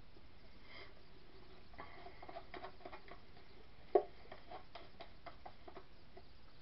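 Light scattered clicks and taps of a plastic cup being handled over a wooden soap mold, with one sharper knock about four seconds in.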